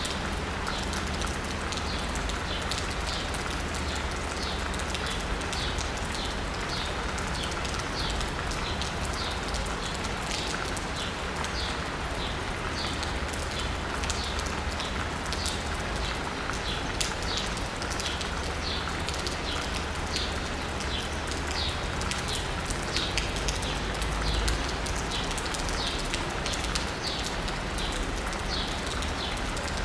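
Steady rain pattering on asphalt and rooftops, with a bird chirping over it throughout, a short high note repeated roughly every half second to second, and a low steady rumble of city traffic underneath.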